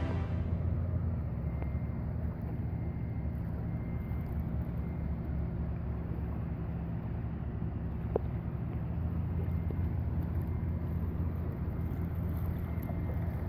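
A steady, low engine drone with one sharp click about eight seconds in.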